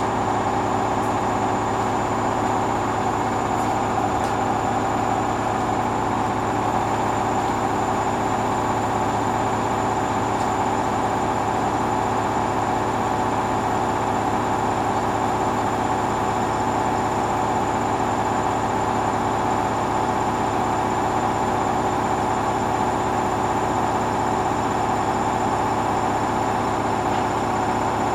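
Hoover washing machine running steadily in its final spin, a constant motor-and-drum hum with several held tones and no change in speed.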